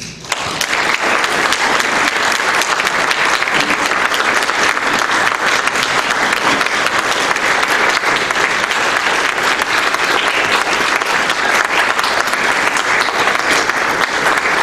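An audience applauding: the clapping breaks out all at once and keeps going steadily as one long round.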